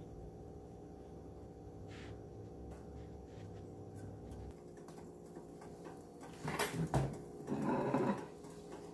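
A low hum that stops about halfway through, then a clunk and clatter as a microwave oven door is opened and a plate is handled.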